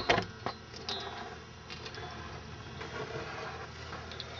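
Handling noise: a sharp click at the start and a couple of smaller knocks within the first second, then a low, even background.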